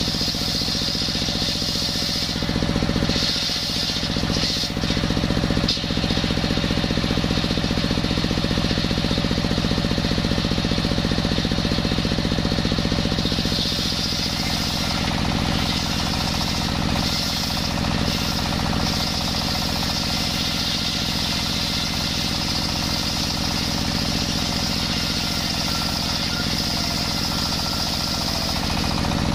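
Table circular saw driven by a belted single-cylinder diesel engine running steadily, its blade screaming as it rips lengthwise through coconut-wood beams. The cut stops around the middle while the blade spins free, and a new board goes into the blade near the end.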